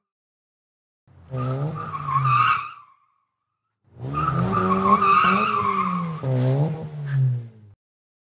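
A car's engine revving hard while its tyres squeal, in two bursts: a short one about a second in and a longer one from about four seconds in.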